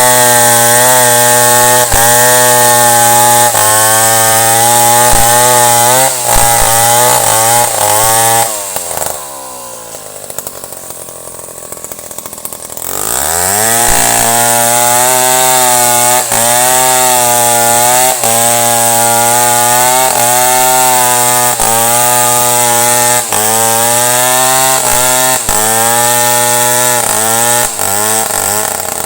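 Chainsaw running at high revs as it cuts wood, its pitch wavering under load. About nine seconds in it drops back to idle, then revs up again some four seconds later and keeps cutting.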